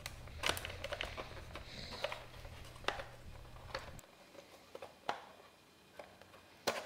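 Faint, scattered clicks and handling noises from the plastic defroster connectors being worked off the back of a heated side-mirror glass.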